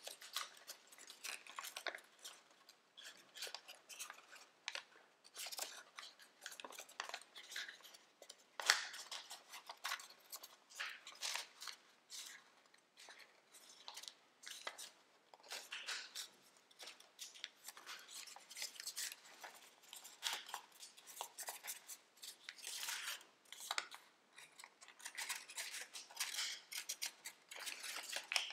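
Tissue-foil origami paper crinkling and rustling in the hands as it is folded and creased, in quick irregular crackles, with one sharper crackle about nine seconds in.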